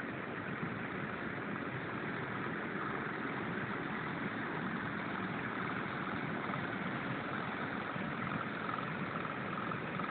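Engine-driven water pumps running steadily at an even speed.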